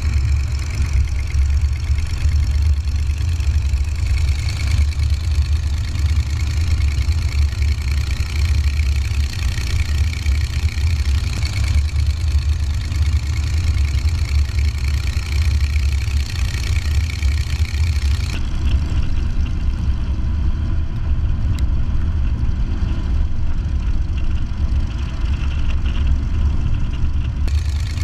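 Chevrolet 283 small-block V8 in a hot-rodded Ford Model A pickup, running steadily with a low rumble as the truck drives along. The sound changes character about two-thirds of the way through.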